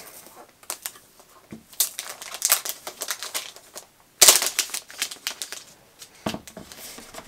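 Clear plastic protective wrap on a laptop crinkling and clicking as it is handled, with a louder crackle and a knock about four seconds in.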